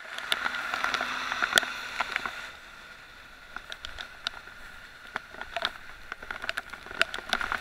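Bicycle tyres hissing through water on a flooded road in heavy rain, with raindrops ticking sharply on the camera. The hiss is louder for the first couple of seconds, then drops.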